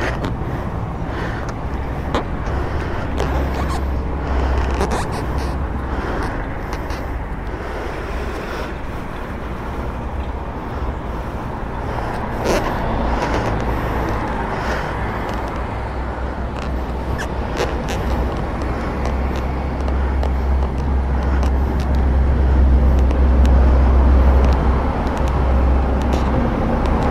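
Low, steady rumble of an idling vehicle engine, growing a little louder in the second half. Scattered clicks and rubbing come from the camera's selfie-stick mount being handled close to the microphone.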